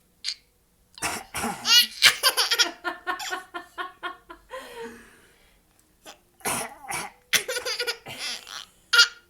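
An adult coughing and a young child laughing at it in two bouts. The first bout starts about a second in, rising into a high squeal and breaking into quick repeated ha-ha bursts. The second comes near the end.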